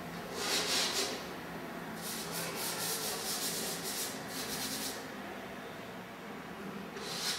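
Drawing strokes rubbing and scraping on an upright canvas: a short burst about half a second in, a run of quick back-and-forth strokes from about two to five seconds in, and another stroke near the end.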